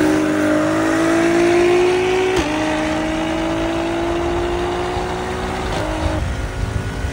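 A high-performance car engine accelerating hard, its pitch climbing steadily. It upshifts about two and a half seconds in and again near six seconds, then fades away near the end.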